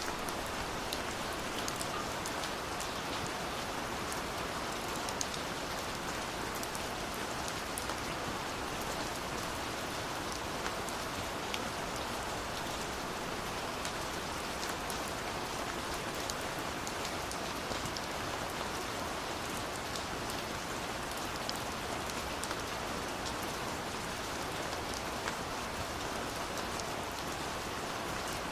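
Steady rain falling, an even hiss with many small sharp drop ticks landing on a surface.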